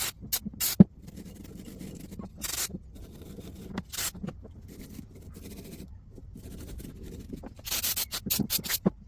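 A small Walbro diaphragm carburetor being handled and taken apart by hand: scattered sharp clicks and taps of small metal parts, with rubbing and scraping between them and a quick run of clicks near the end.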